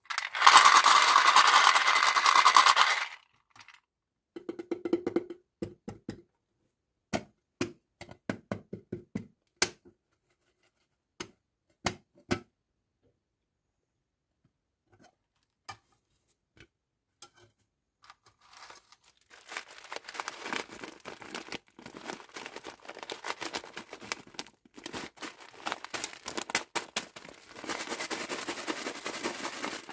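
Packaging being torn open and crinkled, with a loud tearing burst at the start, scattered taps and clicks in the middle, and steady crinkling through the last third.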